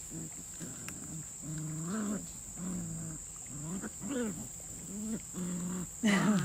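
Cane Corso puppies growling in play while tugging on a rope toy: a string of short growls, about one or two a second, with a louder one near the end.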